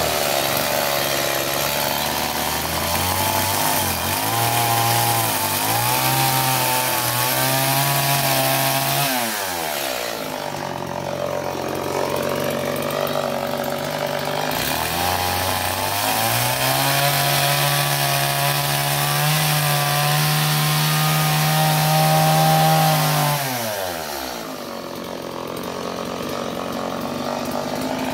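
Gasoline chainsaw carving into a wooden log in two bursts. The engine revs up and holds high while cutting, drops back to idle about nine seconds in, then revs up again and falls back to idle about five seconds before the end.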